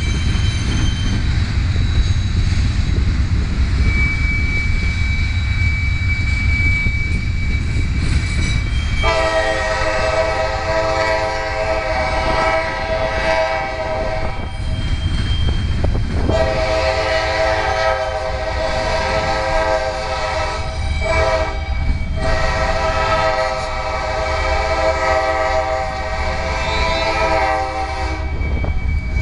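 Double-stack container freight train rolling past with a steady rumble of wheels on rail. About nine seconds in, a locomotive horn starts sounding three long blasts with short breaks between them.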